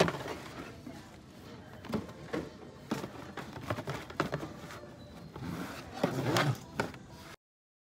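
Shop ambience: irregular knocks and clicks, like handling noise, over indistinct voices, cutting off abruptly near the end.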